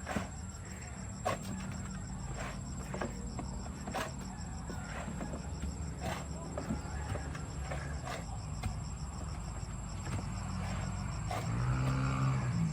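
Steady high-pitched insect trilling, like crickets, over a low rumble, with scattered short knocks and clicks every second or two.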